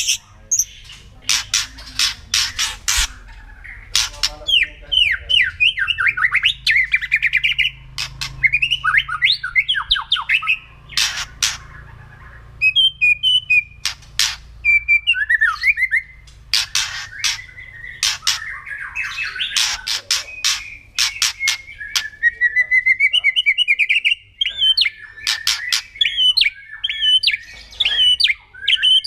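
White-rumped shama (murai batu) singing continuously. It alternates harsh, crackling rattle notes ('kretekan') with rapid whistled phrases and trills.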